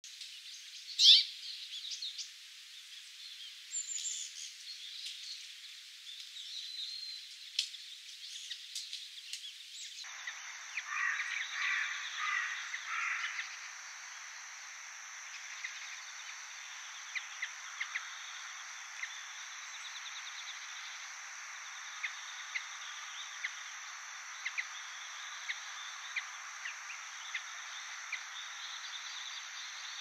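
Bramblings calling: scattered short high chirps and harsher notes, the loudest about a second in, with a denser run of calls around eleven to thirteen seconds in. About ten seconds in the background changes, and a steady high hiss runs behind the sparse chirps after that.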